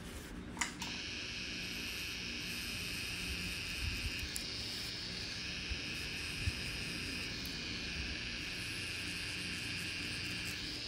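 Tattoo machine running with a steady high-pitched whine as it packs red ink into the skin. It starts about a second in, just after a click.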